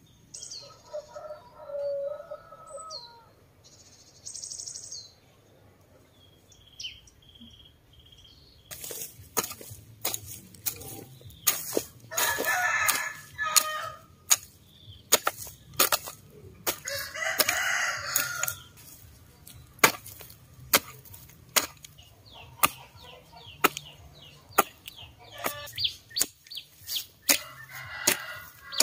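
A long-handled hoe chopping into dry garden soil in repeated strokes, about one a second, starting about a third of the way in. Chickens call throughout, with two long calls that fit a rooster crowing, and birds call at the start.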